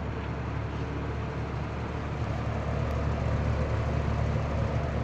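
A 1965 Penncrest 300 box fan's permanent split capacitor motor runs in reverse (exhaust mode), making a steady rush of air over a low hum. The fan, tilted to a different angle on its stand, shakes, and the sound grows a little louder about two seconds in.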